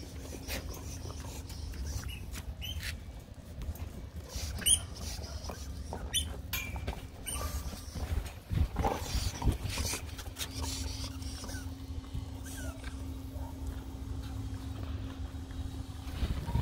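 Dogs at play: short scattered dog sounds, clicks and brief squeaks over a steady low rumble, loudest about halfway through.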